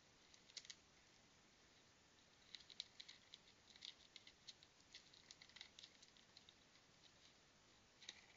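Faint, irregular clicks and scratches from a raccoon clawing at and handling a clear plastic tube bird feeder on a tree trunk, a few about half a second in and a dense run from about two and a half to six and a half seconds in.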